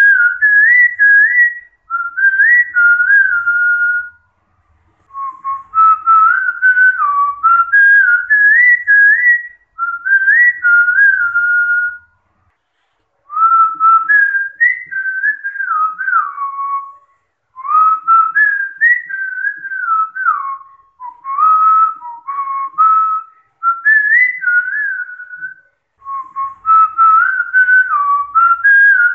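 A person whistling an old Khmer folk tune, one clear melodic line whose pitch steps up and down, in phrases of a few seconds with short breaks for breath between them.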